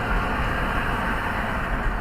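Steady road and engine noise heard inside a moving car, a low rumble under an even hiss.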